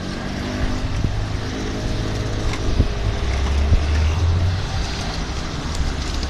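Low, steady vehicle running noise: an engine- or motor-like hum over a constant rumble, swelling a little around the middle, with a few faint sliding tones in the first couple of seconds.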